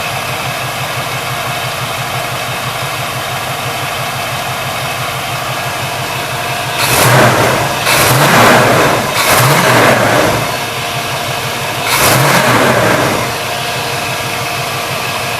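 Pontiac 455 V8 in a 1973 Trans Am running at a high idle, blipped four times with the throttle, each rev rising and falling back. It runs cleanly after new rocker arm studs and a rocker adjustment for an engine noise, and the owner says it sounds good.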